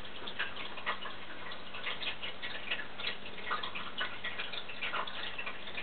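Fine-tipped marker pen scratching and tapping on paper in short, irregular strokes as small details are drawn.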